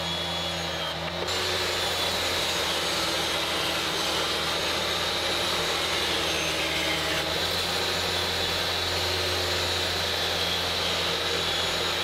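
Table saw running and ripping narrow strips from a weathered cedar fence picket: a steady motor whine under the noise of the blade cutting the wood, growing louder about a second in.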